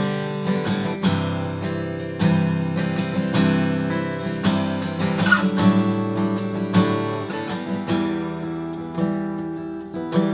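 Martin custom shop Style 28 acoustic guitar, with a Sitka spruce top and Madagascar rosewood back and sides, being played: a steady run of strummed and picked chords, each note ringing on into the next.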